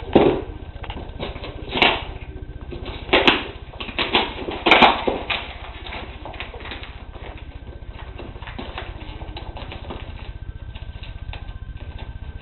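Cardboard shipping box being handled and opened by hand: a few loud scraping rustles in the first five seconds, then lighter crackling and clicking.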